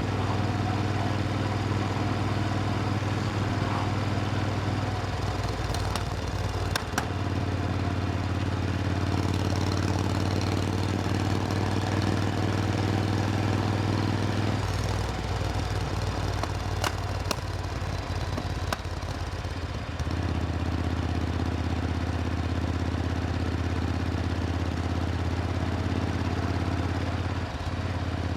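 Supercharged Triumph Thunderbird Storm's 1700 cc parallel-twin engine running steadily with a low drone that shifts in tone about five, fifteen and twenty seconds in. A few sharp clicks sound around seven and seventeen seconds.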